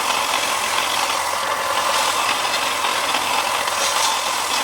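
Electric sander running against a rough-sawn softwood batten, taking off the corners, with a dust extractor drawing the dust away: a steady grinding whirr with a strong mid-pitched band.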